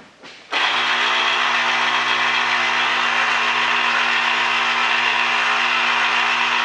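Electric citrus juicer's motor switching on about half a second in and running with a steady, loud hum as a lemon half is pressed onto its spinning reamer.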